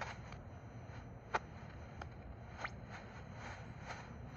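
Tecsun PL-330 shortwave receiver tuned to 9700 kHz, giving a faint steady hiss over a low hum, with a couple of brief faint clicks about one and a half and two and a half seconds in.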